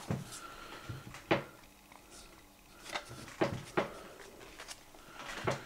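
Handling sounds from a Blu-ray case in a cardboard slipcover being turned over on a wooden table: a handful of scattered taps and clicks.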